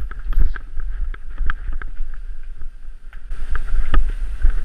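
Mountain bike rolling down a gravel lane: tyres crunching over loose stones and the bike rattling, with many irregular clicks and knocks over a low wind rumble on the microphone.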